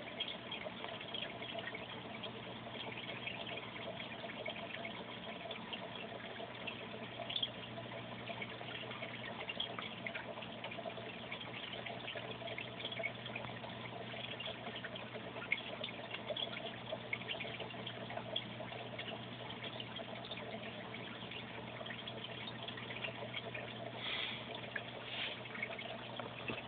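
Steady trickling, water-like noise over a low steady hum, with scattered faint small clicks.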